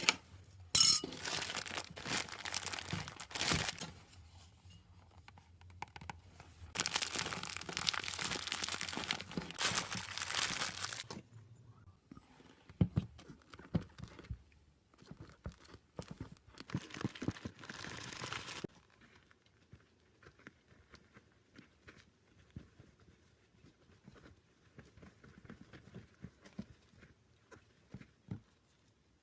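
Crackling, crinkling handling sounds come in three bursts, with scattered clicks and taps between: slime being mixed and worked by hand.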